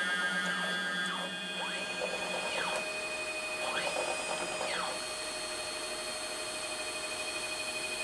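Stepper motors of a home-built CNC router whining as the machine jogs its axes. There are several moves in the first five seconds, each rising in pitch, holding, then falling as the motor speeds up and slows down, over a steady high whine that stays after the moves stop.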